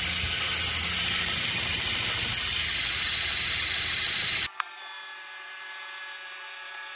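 Lego buggy motor driving two Lego pneumatic pumps, running with a steady mechanical whirr and a high whine that grows stronger as it works. About four and a half seconds in, the sound cuts off abruptly, leaving a fainter steady hum and a single click.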